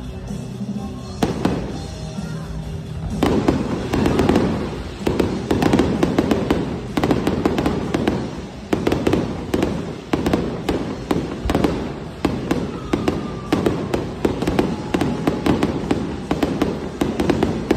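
Aerial fireworks bursting overhead: after a quieter first few seconds, rapid cracks and bangs come thick and fast from about three seconds in.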